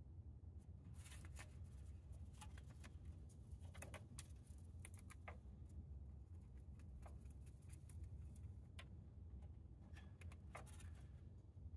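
Pet rabbit chewing dry hay: faint, irregular crisp crunches and rustling of hay strands, starting about a second in, over a low steady hum.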